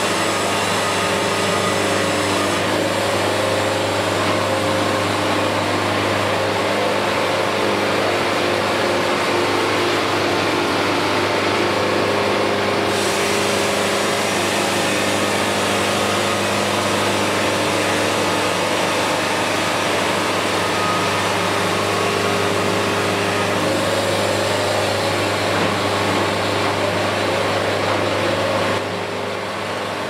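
Band sawmill running steadily with its blade cutting lengthwise through a poplar log: a steady low hum under a dense high rasp. The sound drops a little about a second before the end.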